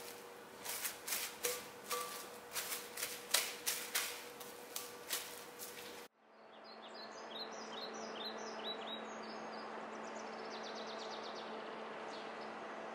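Cutlery clinking against a mixing bowl in a run of irregular sharp clicks, as the bread dough is worked. About six seconds in this cuts off abruptly to small birds chirping in short rising notes over a steady low hum.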